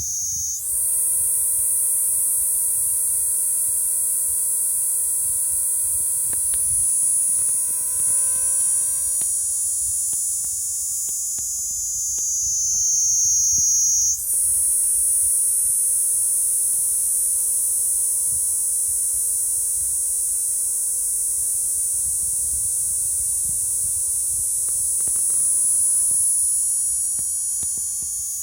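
Kaempfer cicada (niinii-zemi) singing a long, continuous shrill buzz in two drawn-out phrases. The song restarts abruptly about half a second in and again about 14 seconds in, and each phrase slowly rises in pitch.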